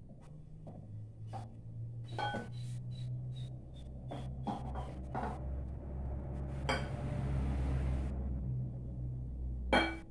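Glass bowl and glass jar clinking in a run of short ringing clicks while dough is worked by hand, then a hiss of about a second and a half as something dry is poured from the small glass jar into the bowl, and a loud glassy knock near the end as the jar is set down on the wooden table. A steady low hum runs underneath.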